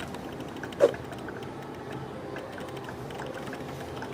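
Plastic ink bottle and printer ink-tank parts being handled, with light clicks and creaks and one sharp click about a second in.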